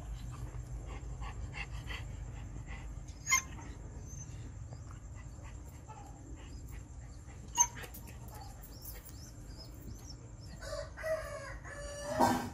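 Shiba-type dog giving short, yelping barks near the end, begging to be fed. Before that, two sharp knocks, about three and seven and a half seconds in, over a steady low hum.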